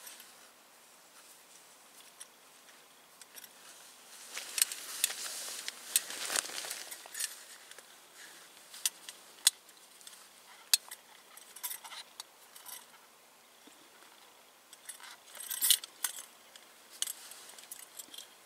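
Light metallic clinks and rattles of a UCO aluminium candle lantern being handled as its glass chimney is slid up, with some rustling, coming in scattered clusters of clicks.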